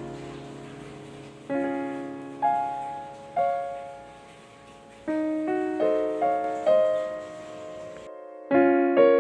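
Background piano music: slow, separate notes and chords, each struck and then fading away, with a brief pause near the end.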